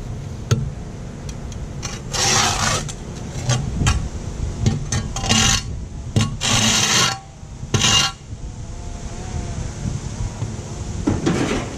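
A garden spade cutting and scraping into sod and soil along a driveway edge, in about five short gritty strokes a second or two apart.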